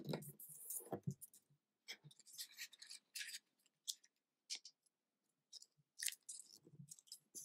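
Origami paper rustling and crinkling as it is folded and pressed flat by hand, in short scattered crackles and scrapes, with a quiet gap about halfway through.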